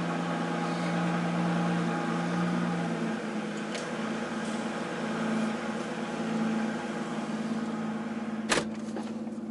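Audi RS6's twin-turbo V8 idling steadily just after starting. The lowest tone in its hum drops out about three seconds in. A single sharp click comes near the end.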